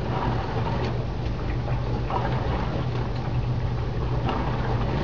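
Asko dishwasher in its wash cycle: a steady low hum with water spraying and sloshing inside.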